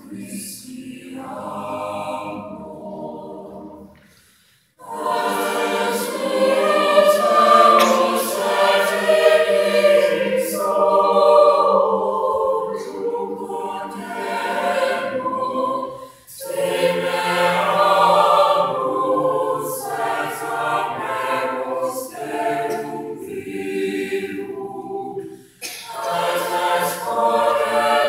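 Mixed-voice high school choir singing in parts, its phrases broken by three short pauses.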